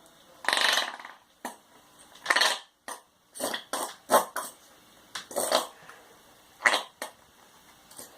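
Squeeze bottle of white glue being squeezed, sputtering and squirting in about ten short bursts as air and glue spurt out of the nozzle.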